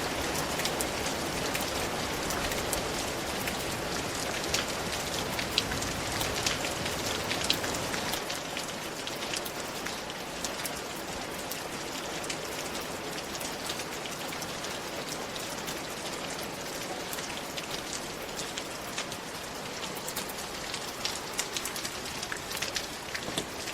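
Steady rain falling, an even hiss with many individual drops ticking sharply on a surface. The deep low rumble under the rain fades about eight seconds in.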